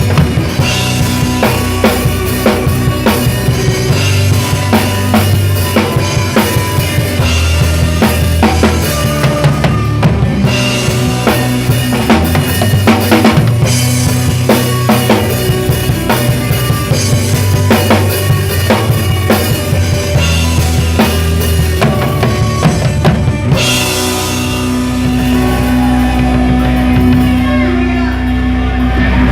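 Drum kit played hard over a worship song, with steady kick, snare and cymbal hits on top of sustained band or backing-track chords. About six seconds before the end the beat thins out into a held chord with few drum hits.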